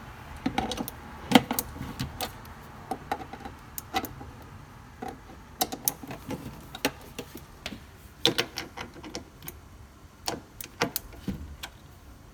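A screwdriver working the cam lock fittings of a modular bookcase, turning them clockwise to lock: irregular sharp clicks and light knocks of metal against the fittings and wooden panels.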